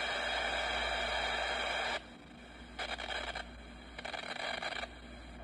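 Static from a small portable multi-band radio's speaker as its dial is tuned: a steady low hiss with loud bursts of rushing static, one about two seconds long at the start and two shorter ones near the middle and toward the end.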